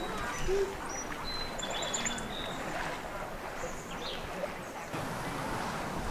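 Small birds chirping, with several short high whistles and a quick trill in the first half, over a steady rushing hiss.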